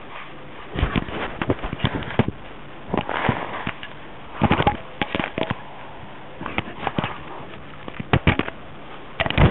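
Nova Scotia duck tolling retriever mouthing and chewing a micro camera, its teeth and jaws knocking and scraping on the camera body right against the microphone: clusters of sharp clicks and crackles every second or two, with short lulls between.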